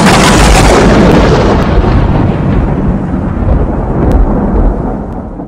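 A sudden, very loud rumbling crash of noise that slowly dies away over about five seconds, then cuts off abruptly.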